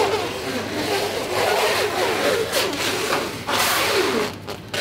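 Plastic cling film being pulled off its roll and stretched around a hanging carcass, a hissing rasp of plastic with a couple of louder pulls in the second half. Voices murmur in the background.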